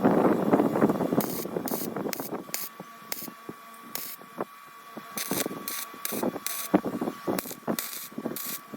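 Aerosol spray can being sprayed in a series of short hissing bursts, after a second or two of rougher handling noise.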